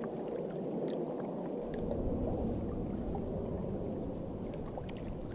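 Wind buffeting the camera microphone: a steady rushing noise that gains a deeper rumble a couple of seconds in, with a few faint ticks.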